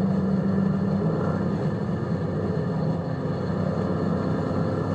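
Dodge Scat Pack's 392 HEMI V8 running at a steady, even engine note while driving.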